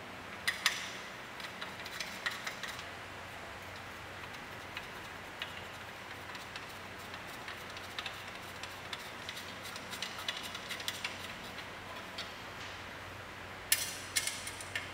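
Light clicks and taps of hands handling the aluminium table base's pole bracket and its knobbed thumb screws. They come in scattered clusters, the sharpest at the start and near the end.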